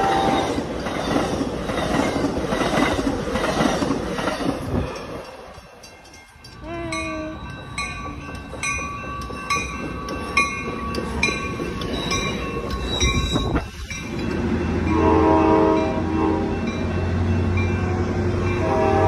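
Passenger train cars rumbling past on the rails. After a cut, a grade-crossing bell dings steadily, about one and a half strokes a second, as a commuter train approaches. In the last few seconds a train horn sounds twice over the low rumble of the passing train.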